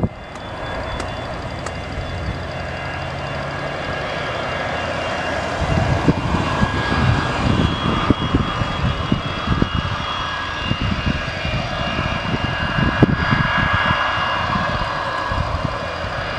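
Boeing 737-200's Pratt & Whitney JT8D turbofan engines running while the jet taxis and turns on the runway: a steady high-pitched turbine whine over a low rumble, which turns uneven and gusty from about six seconds in.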